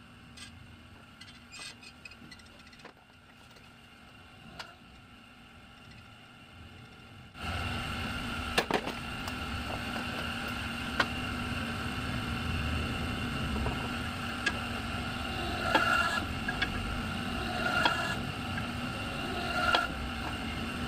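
A wheel repair machine's electric motor switches on about seven seconds in and runs steadily with a hum. A few sharp clicks follow, and short swells recur about every two seconds near the end.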